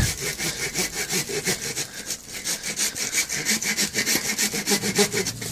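Hand saw cutting through wood in quick, even back-and-forth strokes.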